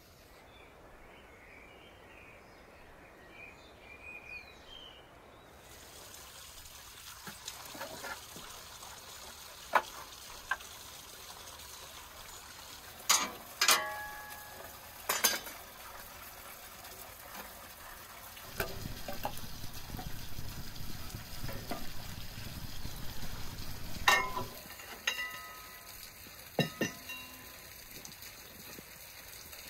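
Wood fire crackling in an outdoor stove, with several sharp metallic clanks that ring on as split logs are loaded into the metal firebox. The sound starts faint, and there is a few-second stretch of low rushing noise in the middle.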